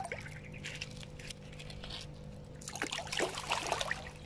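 Water splashing in irregular bursts from a large hooked fish being landed, heaviest about three seconds in.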